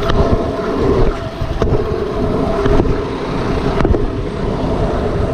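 Wind rushing over the microphone while a pro scooter's wheels roll fast on asphalt, with a steady hum and several sharp clicks about a second apart from the scooter jolting over the road.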